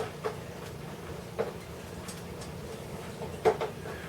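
A few light, irregular clicks and knocks from small clock parts and a screwdriver being handled during the clock's reassembly, over a faint steady hum.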